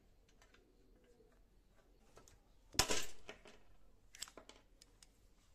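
Stanley hand pop-rivet gun working a rivet into a lawn mower engine's sheet-metal shroud: one loud sharp clack about three seconds in, then a few lighter metallic clicks.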